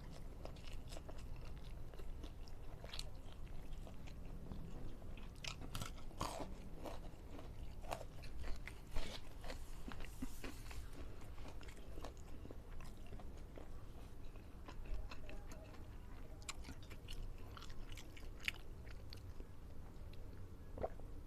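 A person chewing and biting food close to the microphone, with scattered short crunches and mouth clicks.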